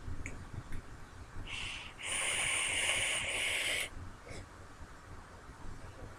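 Electronic cigarette being drawn on: a short pull about a second and a half in, then a steady hissing draw of about two seconds through the vape's atomizer, which then stops.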